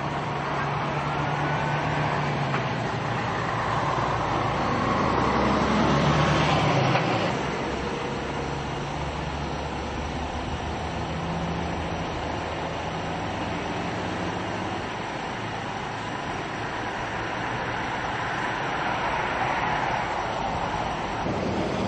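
Road traffic: vehicle engines and tyre noise. One vehicle passes louder and closer about six or seven seconds in, then fades.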